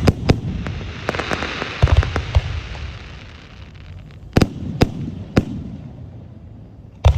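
Aerial fireworks bursting: sharp cracks at the start, then a dense crackling spread with low booms, three more sharp reports about a second and a half to half a second apart, and another heavy boom near the end.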